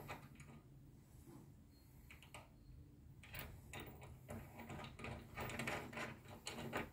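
Faint, scattered clicks and taps of small metal parts being handled as a bonnet gas strut's end fitting and washers are fitted to its mount on the bonnet.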